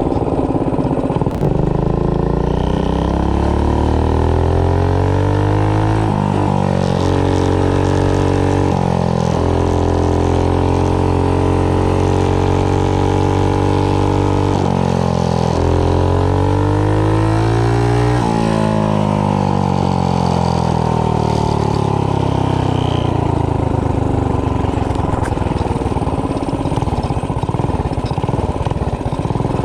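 Predator 212 single-cylinder four-stroke engine on a mini bike, fitted with a GX160 head, running hard under load. Its pitch climbs and holds high for several seconds, drops away about halfway through, climbs again, then slowly winds down.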